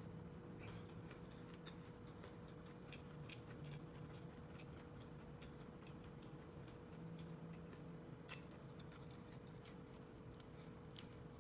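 Faint, irregular small clicks of chewing and biting kernels off a corn on the cob, over a steady low hum, with one sharper click about eight seconds in.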